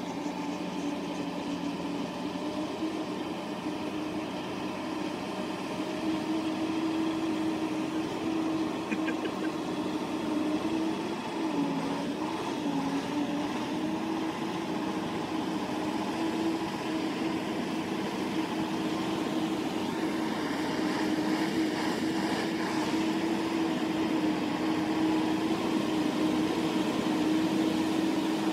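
Diesel engine of a log-laden truck running steadily under load while it drives through a river. Its pitch dips briefly about twelve seconds in, and it grows gradually louder toward the end as the truck comes closer.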